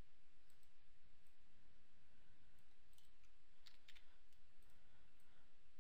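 Faint, irregular clicks of a computer mouse and keyboard, with a small cluster of clicks just before four seconds in, over a steady low background noise.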